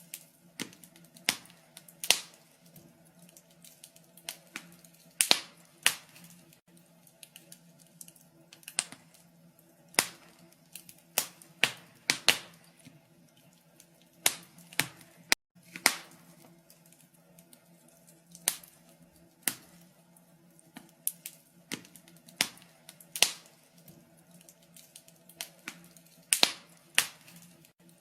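Wood fire in a fireplace crackling: irregular sharp pops and snaps, some much louder than others, over a faint steady low hum.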